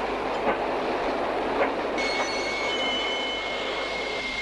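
Railway train running, with steady rolling noise and a few knocks of the wheels over the rails. About two seconds in, a high steady squeal starts and holds.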